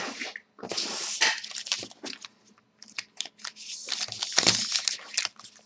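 Sealed hockey card packs being handled and shuffled, their wrappers crinkling and rustling in short irregular bursts.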